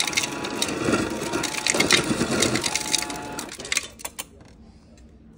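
Refrigerator door dispenser dropping ice into a plastic blender jar: a dense clatter of ice hitting the plastic, stopping about four seconds in.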